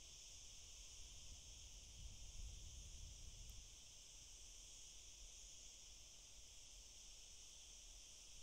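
Faint, steady high-pitched insect chirring with a faint low rumble underneath.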